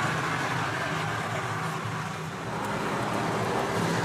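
A steady low mechanical hum over an even background noise, like a running motor or road traffic, with a slight dip in level about halfway through.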